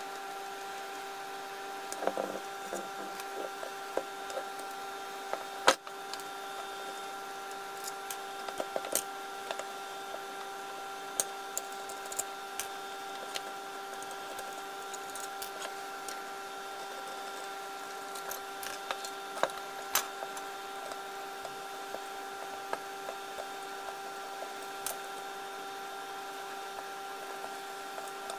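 Scattered clicks and light knocks of a screwdriver and plastic housing parts being handled while screws are taken out of a Makita 1902 planer's handle, one sharper knock about six seconds in. A steady hum runs underneath.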